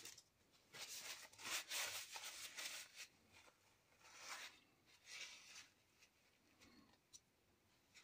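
Faint rustling and rubbing of hands and paper on card: a longer stretch of scraping in the first seconds, then two short brushes.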